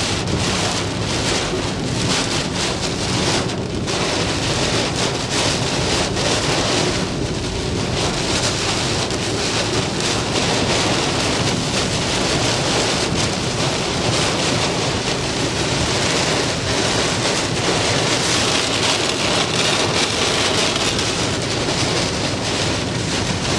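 Heavy thunderstorm rain and wind, a dense steady roar with a rapid crackle of drops and gusts buffeting the microphone.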